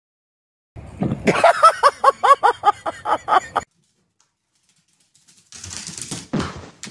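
A small puppy yapping: a quick run of about ten high yips, roughly four a second, which stops abruptly. A brief rustling noise follows near the end.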